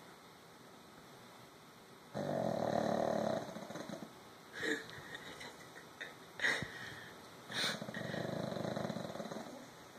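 A dog snoring in its sleep: a long snore about two seconds in, three short sharp snorting breaths, then another long snore near the end.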